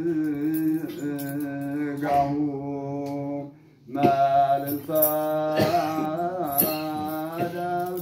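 Men's voices chanting wereb, an Eritrean Orthodox liturgical hymn, in slow, drawn-out unison lines with ornamented, wavering notes over a steady held low note, heard through a microphone. The singing breaks off about three and a half seconds in and starts again about half a second later.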